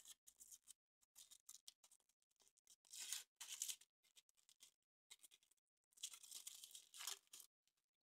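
Thin foil wrapper of a Kinder Surprise egg being torn and crinkled off in several short bursts, loudest about three seconds in and again from about six to seven seconds in.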